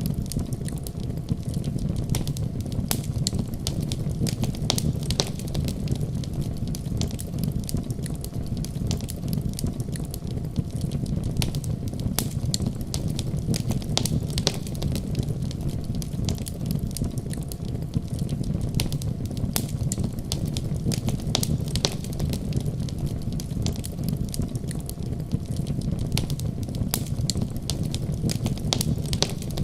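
Wood fire in a fireplace crackling and popping, with many irregular sharp snaps over a steady low rumble.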